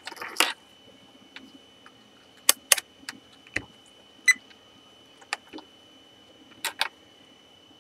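Scattered sharp clicks and taps, some in close pairs, as test-lead plugs are moved between the jacks of a Fluke 87V multimeter and its rotary dial and buttons are worked, to check whether the current-range fuse has blown. About four seconds in there is one short beep. A faint steady high whine sits underneath.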